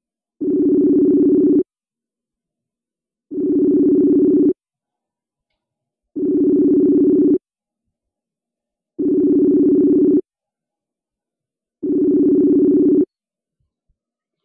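Facebook Messenger outgoing-call ringback tone: a low, steady tone sounding five times, each ring about a second long and repeating roughly every three seconds. The rings stop near the end as the call goes unanswered.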